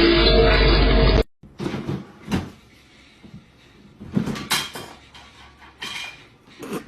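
Loud electric-guitar music that cuts off suddenly about a second in, followed by a series of short knocks and clatters, like a cupboard door banging, with the loudest ones about halfway through and near the end.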